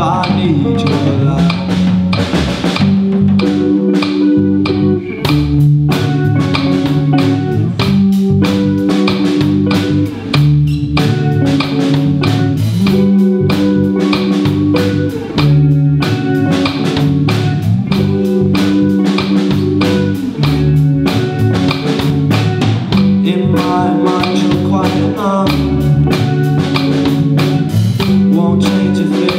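Rock band playing an instrumental passage with no vocals: two electric guitars, an electric bass and a drum kit. The drums keep a steady beat under held guitar chords and notes.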